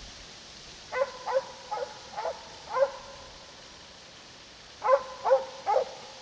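Schiller hound barking while trailing hare, the hound's hunting bay that signals he is on the scent. The barks come as a run of five short barks, a pause of about two seconds, then three more.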